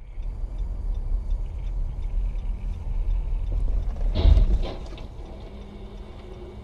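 Dashcam car cabin sound: a steady low rumble of engine and road, with a faint regular ticking. About four seconds in, a short loud burst of noise comes as a car skidding on the icy road collides ahead.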